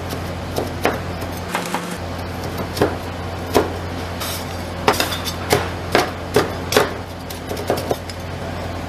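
Two metal spatulas chopping frosted toaster pastries on the cold steel plate of a rolled-ice-cream pan: irregular sharp chops of blade on steel, coming fastest about five seconds in, over a steady low hum.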